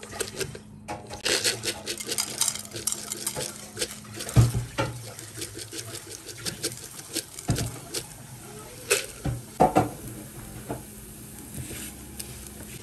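Crisp fried onions stirred in hot oil in a nonstick frying pan: the oil sizzles while a spatula scrapes and knocks against the pan, with a few louder knocks about four and a half, seven and a half and nine to ten seconds in. This is the tempering (baghar) for haleem.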